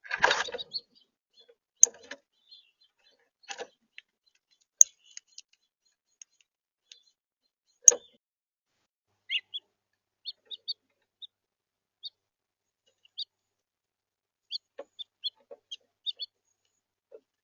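House finches giving short, high chirps, scattered and coming more often in the second half. A brief rustle right at the start and a few sharp clicks or taps in the first half.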